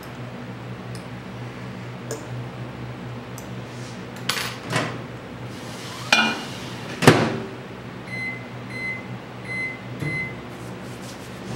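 Microwave oven being loaded with a glass cup of soft plastic bait plastisol: knocks and clatter, then the door shut with a loud click about seven seconds in. This is followed by four short keypad beeps as the heating is set.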